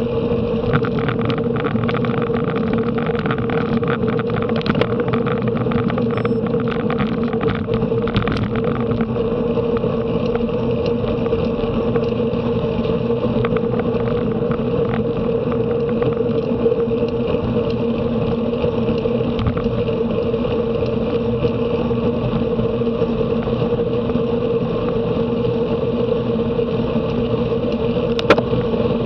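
Steady rush of wind and road noise from a bicycle ridden at race speed, with an even hum running under it and a sharp tick near the end.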